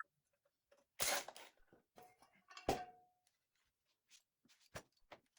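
Faint handling of metal bumper parts: a rustle, then a knock about two and a half seconds in that rings briefly with a single tone, and a couple of small clicks near the end.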